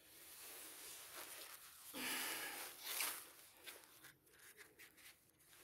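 Soft rustling and scuffing from someone moving about, loudest about two seconds in, followed by a few scattered light clicks.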